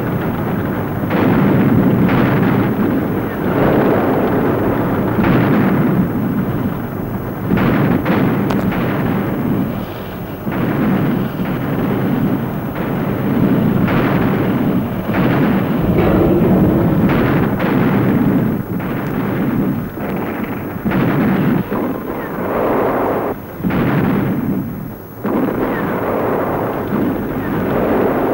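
Battle sound track of tank cannon fire and shell explosions, blast after blast every second or two over a continuous din.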